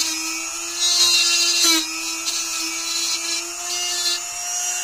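Small handheld rotary tool spinning a wire brush bit, its motor whining steadily, with scratchy bursts as the brush scrubs the fence energizer's terminals and spark gap. The scraping is loudest about a second in.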